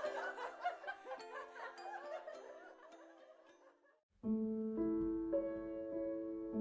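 Background music only: a chiming mallet-percussion tune fades out over about four seconds, a brief silence, then a gentle piano tune begins.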